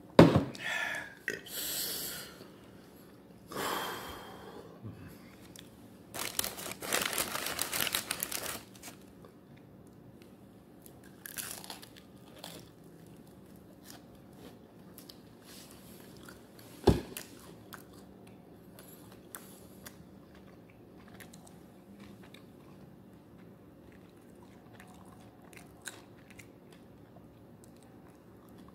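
Close-up biting and chewing of crispy fried chicken wings: crunching in several bursts over the first nine seconds, with one sharp thump about seventeen seconds in, then only faint chewing clicks.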